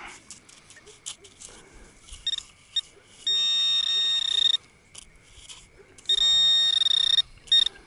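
Metal detector sounding target tones: a few short beeps, then two steady high beeps of about a second each.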